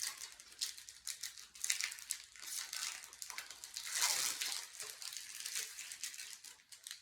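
Plastic wrapper of a Pokémon booster pack crinkling and crackling in the hands as the pack is worked open. The crackling is loudest about four seconds in.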